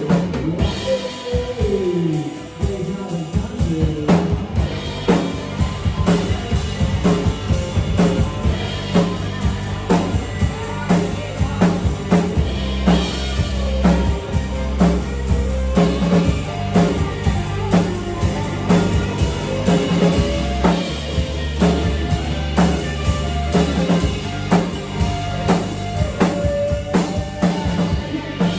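Live band music: a steady drum-kit beat with electric bass and guitar, with some falling slides in the first couple of seconds.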